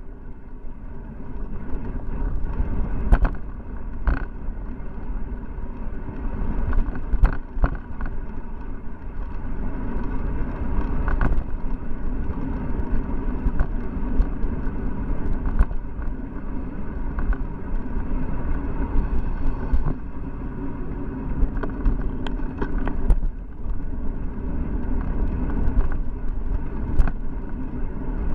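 Steady wind and road rumble from a bicycle riding at speed, picked up by a camera mounted on the handlebars, with scattered sharp clicks and knocks as the bike and mount jolt over the road surface.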